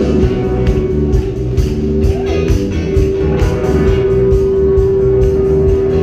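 Live pop-rock band playing loudly: electric guitars strummed over a steady drum beat, with one note held steady through the second half.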